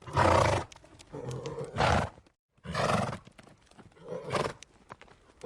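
Horse calls: four short, loud, rough bursts, with a sudden break to dead silence between the second and the third.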